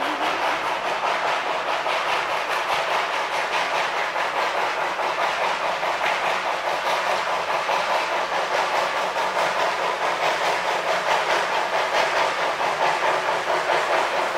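Achenseebahn rack-railway steam locomotive pushing its carriages uphill, working hard with a fast, even chuff of exhaust beats and hiss of steam, growing a little louder as it draws closer.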